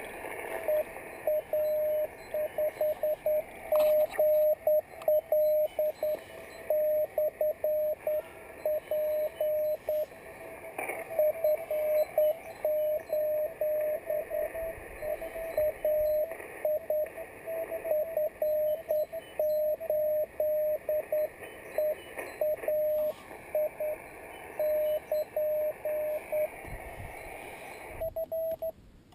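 Morse code from a Yaesu FT-817ND transceiver: one steady mid-pitched tone keyed on and off in dots and dashes, over receiver hiss, with a short break near the end.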